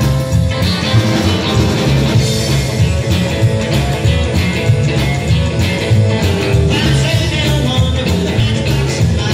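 Live rock-and-roll trio playing with a steady beat: upright double bass, drum kit and electric guitar.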